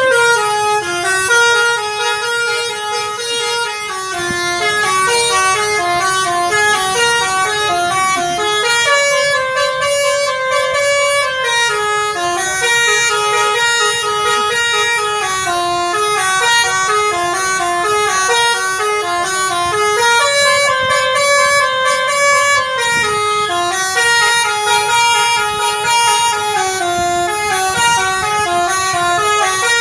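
Indonesian bus 'telolet' multi-tone air horn playing a long melody: a quick run of stepped notes that keeps going, with the same phrase coming round about every eleven seconds.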